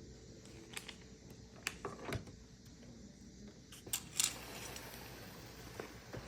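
Hard plastic Lego pieces clicking and clattering as the model is handled, a few scattered light clicks with a small clatter about four seconds in.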